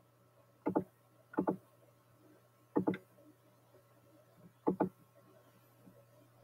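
Computer mouse clicks: four quick double clicks, each a pair of sharp strokes, over a faint steady low hum.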